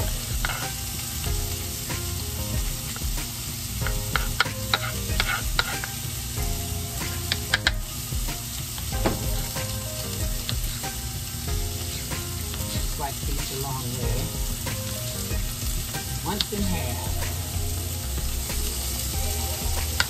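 Turkey bacon, garlic and onions sizzling steadily in a stainless steel pan. A few sharp knife taps on a wooden cutting board come in clusters a few seconds in and again around eight seconds, as mini sweet peppers are sliced.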